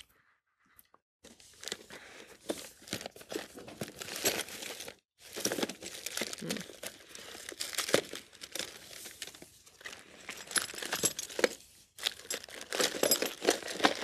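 Rummaging through crinkly material: irregular rustling and crinkling, starting about a second in, with two short pauses.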